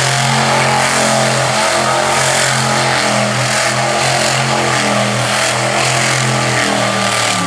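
Monster truck engine running hard at high revs through a freestyle run, the pitch wavering a little with the throttle. It drops off just before the end.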